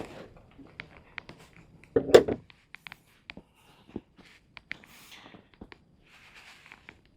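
Handling noises: scattered small clicks and taps, with one louder scuffing noise about two seconds in.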